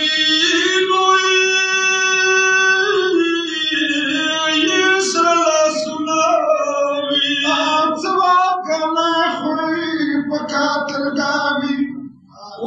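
Pashto noha, a Shia mourning lament, sung by a male reciter in a high, drawn-out voice with long held notes and no instruments to be seen. The singing breaks off briefly near the end between lines.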